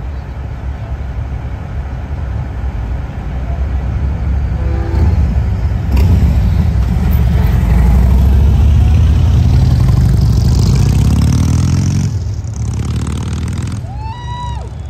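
Engines of semi trucks and a police pickup pulling away in a parade, loudest in the middle, with an engine rising in pitch as it accelerates before cutting off suddenly. Near the end comes a short rising-and-falling siren whoop.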